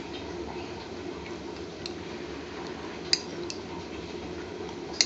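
Kitchen utensils clinking a few times against a pan and containers as ingredients are added, the sharpest clink about three seconds in, over a steady low hum.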